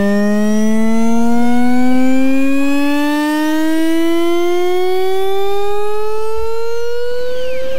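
Black MIDI playback: a dense mass of synthesized notes merges into one sustained, siren-like tone with many overtones that glides slowly and steadily upward in pitch.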